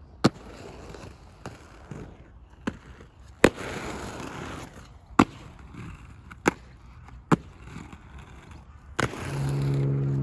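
Inline skates on concrete: wheels rolling, with a series of about nine sharp clacks as the skates land and strike the concrete and ledges. A louder stretch of rolling comes around the middle. Music comes in near the end.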